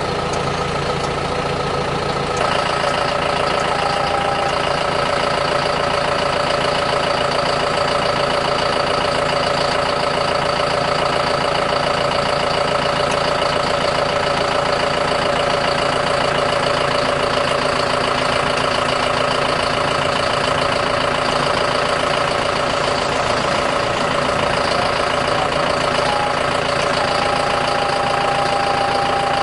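John Deere tractor's diesel engine running steadily, with a higher, steady whine joining about two seconds in while the loader-mounted lift seat moves.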